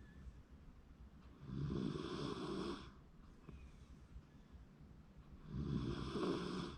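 Shiba Inu snoring in its sleep: two snores about four seconds apart, each a little over a second long.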